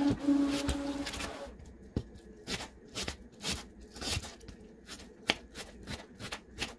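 Serrated kitchen knife cutting a white onion on a thin plastic cutting mat: sharp, irregular taps as the blade strikes the mat, about one or two a second. A steady hum with a hiss runs through the opening second and a half, then stops.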